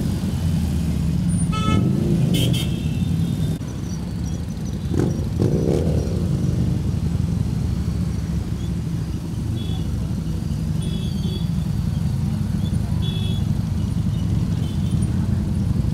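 Many motorcycle engines running together at low riding speed, a steady low rumble. Horns toot a couple of times in the first few seconds.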